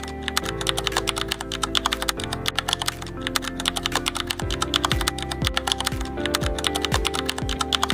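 Typewriter-style typing sound effect, rapid key clicks many times a second, over background music with held tones; from about four and a half seconds in, a low beat thumps about twice a second.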